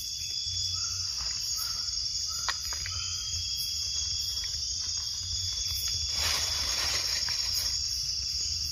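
Night-time insect chorus in tropical forest: a steady, high-pitched continuous trill. A few short notes sound about a second in, and a rustling noise comes about six seconds in.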